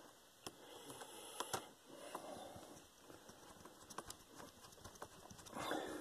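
Faint, sparse clicks and scrapes of a small screwdriver working a screw into a laptop's keyboard frame, with a soft breath-like rush near the end.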